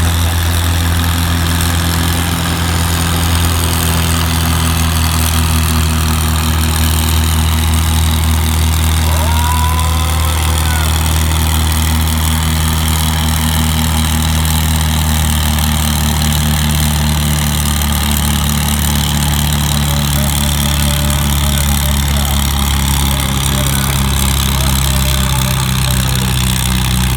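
Antique farm tractor engine wound up to high revs and held there, pulling a weight-transfer sled at a farm stock tractor pull. A loud, steady engine drone that shifts slightly in pitch in the second half.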